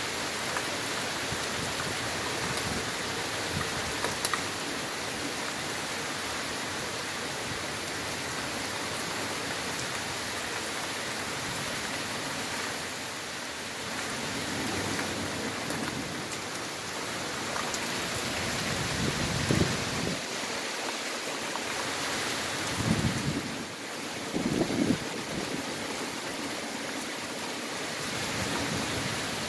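Heavy rain pouring steadily during a thunderstorm, with a few short low rumbles in the second half.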